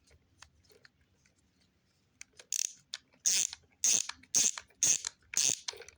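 Screwdriver working a small screw on a toy RC car: a run of short, scratchy clicks about twice a second, starting about two seconds in.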